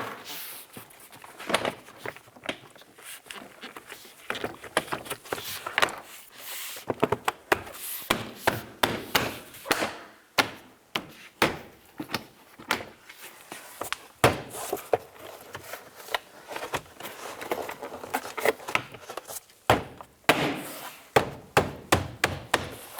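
Plastic door trim panel being knocked home by hand so its push-pin clips snap into the door: an irregular run of dull knocks and thumps.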